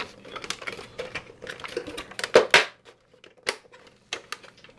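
Hard plastic parts of a Bowser's Doom Ship toy being handled and clipped together, a busy run of small clicks and rattles with a couple of louder clacks about two and a half and three and a half seconds in.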